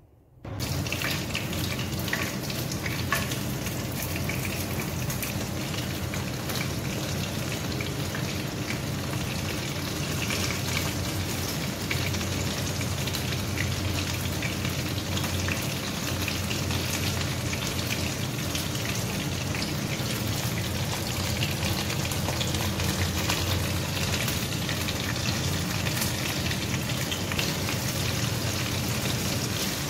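Chicken breast coated in egg and breadcrumbs frying in hot oil: a steady, dense sizzle and crackle that starts abruptly about half a second in.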